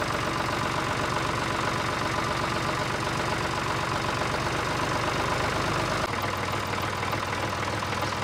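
Diesel tractor engine sound idling steadily with a fast, even chug. It is a recorded sound effect matched to a toy tractor, not the toy's own motor.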